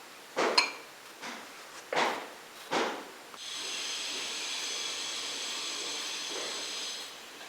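Kitchen utensils clinking and scraping, one stroke ringing briefly. Then a steady high hiss with a thin whine runs for about three and a half seconds and stops.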